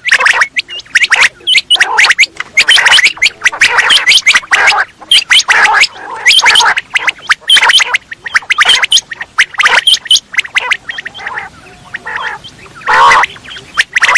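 Quail calling over and over: short, loud calls several a second in quick succession, with a longer, louder warbling call near the end.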